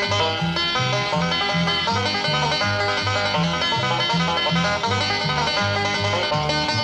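Instrumental background music with a steady beat and a bass line bouncing between two low notes.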